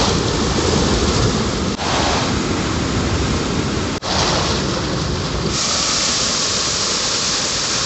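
Muddy floodwater from days of heavy rain rushing and cascading down a rocky channel in a steady roar of water. It breaks off briefly twice and turns a little brighter in tone past the middle.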